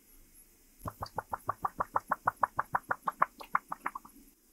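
Liquid draining from a plastic funnel into a bottle, glugging as air bubbles back up through the funnel's neck. The glugs come as a quick, even run of about six a second, start about a second in and stop after about three seconds.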